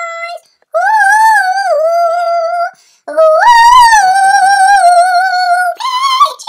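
A girl's high voice singing wordless notes, humming-like: a short note, a phrase that rises and falls, then a long note held for nearly three seconds, with no instruments heard under it.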